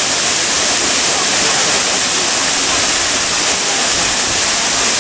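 Minoo Falls, a tall waterfall, crashing into its pool in a loud, steady, unbroken rush.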